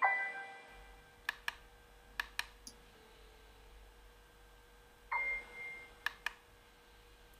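Sparse glockenspiel-like chime notes, one dying away at the start and another about five seconds in, with a few short sharp clicks between and after them over a faint steady hum.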